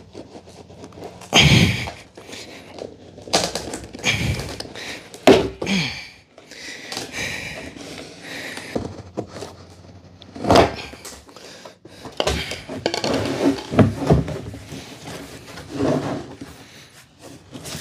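White PVC pipe fitting being pressed and twisted into a hole in a hollow plastic barrel: irregular plastic scraping and squeaking, with hollow knocks and thuds from the drum as it is handled.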